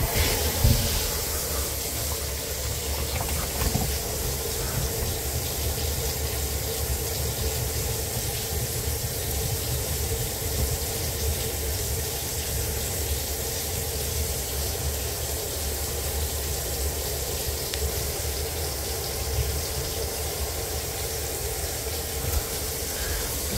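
Kitchen faucet running steadily into the sink, the water pouring down through the sink drain and trap below. The water is running as a leak test of the freshly resealed drain joint.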